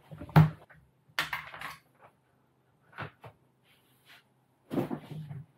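Handling sounds of a thin laptop being laid flat on a table and a coiled charging cable being picked up and brought to its port: a series of short, irregular knocks and clatters, the sharpest just under half a second in.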